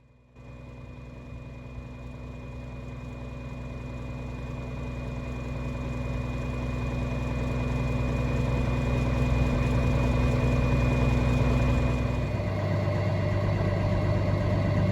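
Tractor engine running steadily while driving, growing louder, its tone changing about twelve seconds in.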